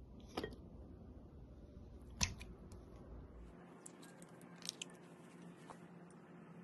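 Food-prep handling sounds at a glass mixing bowl: a few sharp knocks and clicks, the loudest about two seconds in, then light clicks as yogurt is scraped from its tub onto raw chicken pieces with a spatula.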